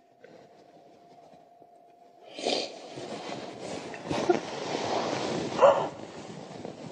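A woman sobbing in grief, starting about two seconds in, with gasping, breathy cries and louder wails about four and five and a half seconds in. Before it, a faint steady hum.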